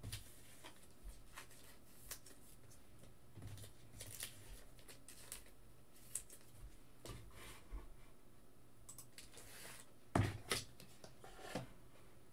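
Faint scattered clicks and light rustling of small objects being handled at a desk, with a few louder clicks about ten seconds in.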